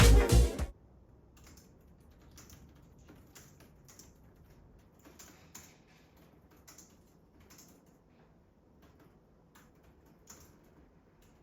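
Background music cuts off under a second in, followed by faint, irregular light clicks and taps.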